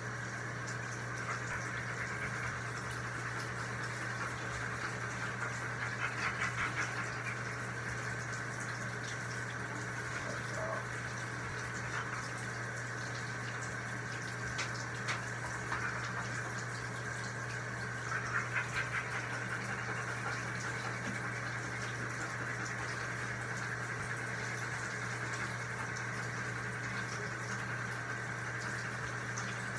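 Steady rush of water running into a bathtub over a constant low hum, with two short rattling bursts about six and eighteen seconds in.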